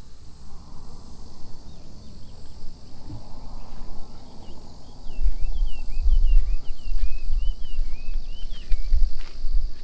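Summer field ambience: insects drone steadily at a high pitch, and a bird calls a quick run of short chirps through the middle. From about halfway there is also a low, uneven rumble.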